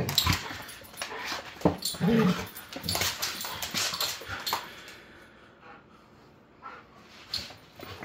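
Two yellow Labrador retrievers play-fighting: a short growl about two seconds in among quick scuffling and clicking sounds, which thin out and get quieter over the last few seconds.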